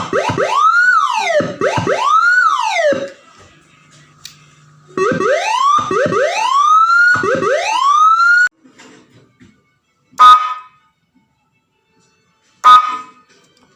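Freshly serviced electronic siren module running through its tones. First comes a wail that rises and falls in quick sweeps. After a pause, three rising sweeps each cut off at the top, and near the end there are two short, loud blasts about two and a half seconds apart.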